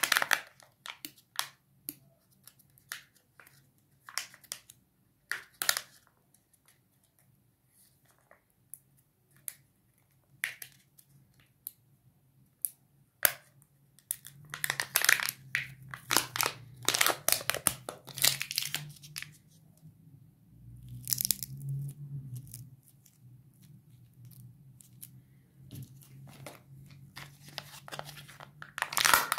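Foil wrappers and a plastic Kinder Joy egg being handled and torn open, close up. Scattered crinkles and clicks come first, then, about halfway through, a longer stretch of dense foil crinkling and tearing.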